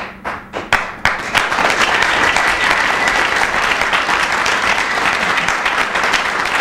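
Audience applause: a few separate claps at first, swelling about a second in into steady, dense applause.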